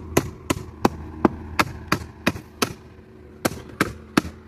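Rapid, even hammer blows, about three a second, used to knock a stuck part loose from a piece of scrap. Eight strikes, a short pause, then three more.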